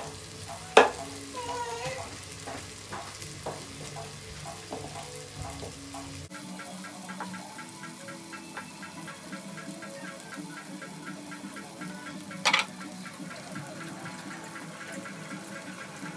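Ground masala paste sizzling and crackling in hot oil with sautéed onions and tomato in a pot. There is a sharp click about a second in and another about twelve seconds in.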